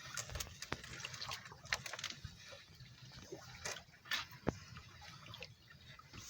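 Water splashing, dripping and sloshing in small irregular drips and clicks, as from hands or gear moving in shallow water.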